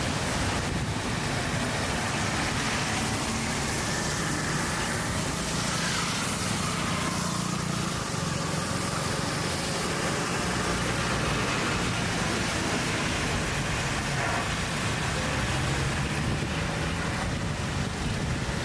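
Steady city road traffic: a continuous noise of car engines and tyres on the road, with no single vehicle standing out.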